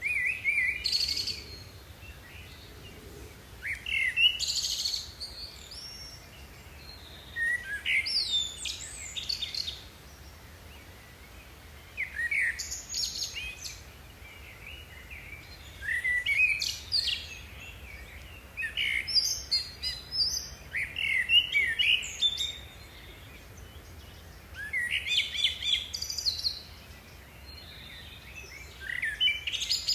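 A songbird singing short phrases of high chirps and trills, about eight of them, each a second or two long, with pauses of a few seconds between.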